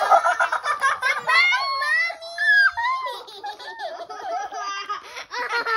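A young girl's high-pitched giggling and squealing laughter, in short bursts.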